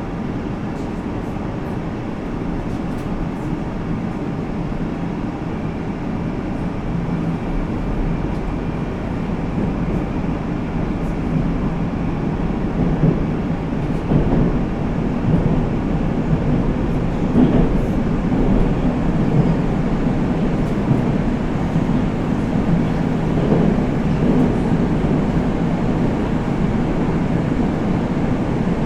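Interior running noise of a Moscow Metro 81-765 «Москва» subway car as it pulls away from the station and gathers speed, the rumble of wheels on rail and the drive growing steadily louder.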